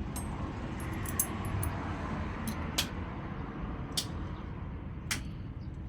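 Sharp clicks and taps of metal engine parts and hand tools being handled, scattered irregularly, over a steady low rumble.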